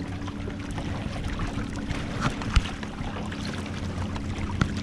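Water splashing and trickling against the hulls of a Hobie Adventure Island sailing kayak under sail, with scattered small clicks and two sharp knocks, the loudest about two and a half seconds in and another near the end.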